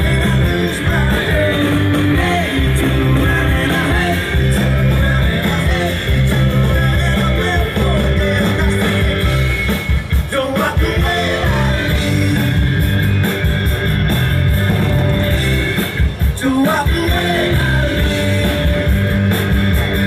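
A rock band playing live, with singing and guitar.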